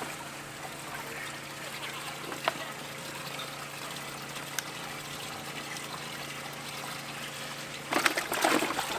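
Water trickling and dribbling steadily, with a louder burst of splashy noise about eight seconds in.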